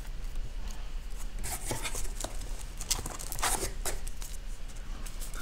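Trading cards and their plastic holders being handled and set down: a string of short rustles and scrapes, mostly between about a second and a half and four seconds in, over a low steady hum.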